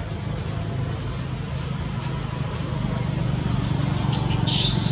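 Steady low engine hum, with a short burst of hissing noise near the end.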